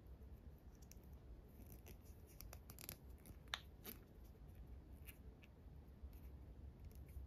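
Faint rubbing and small clicks as a 1/12-scale model motorcycle tyre is worked onto its spoked plastic wheel rim by hand, with one sharper click about three and a half seconds in.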